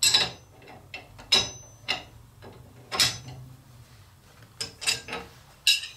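Steel arbor wrench clinking against a table saw's dado blade and arbor nut: a series of separate, uneven metal clicks and clanks.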